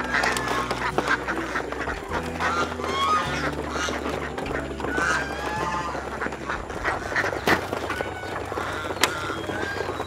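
Domestic ducks and geese calling over and over in short quacks and honks while being fed, over background music with sustained low notes. Two sharp knocks in the last few seconds.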